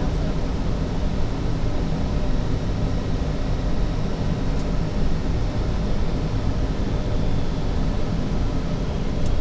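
Steady flight deck noise of a Boeing 757 on approach: an even, low rush of air with a few faint steady tones above it.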